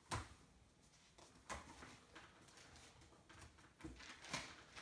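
Near silence: room tone with a few faint, short knocks.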